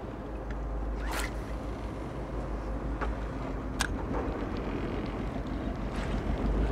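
A boat's engine idling with a steady low rumble under wind and water noise, with a couple of brief sharp swishes or clicks, one about a second in and one near four seconds in.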